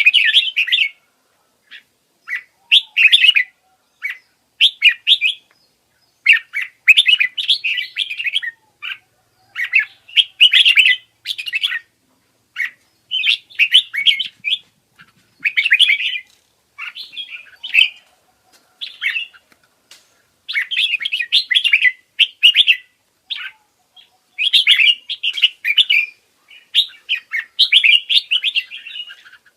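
Forpus parrotlets chirping in short bouts of rapid chatter, one after another with brief pauses between.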